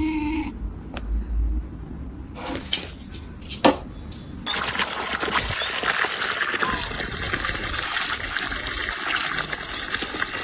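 A few clicks and knocks, then water starting to run with a steady rush about four and a half seconds in.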